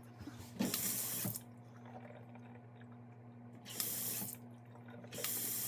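Freshly repaired single-handle kitchen faucet turned on and off three times, water rushing into the sink in short bursts of about a second each, as the fixed faucet is tested.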